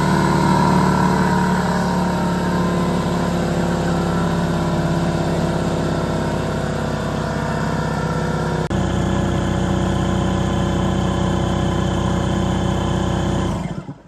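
Husky 41004 Air Scout 1.5-gallon portable air compressor running steadily as it pumps its tank up toward its 135 psi maximum, with a momentary break about nine seconds in. The motor stops near the end.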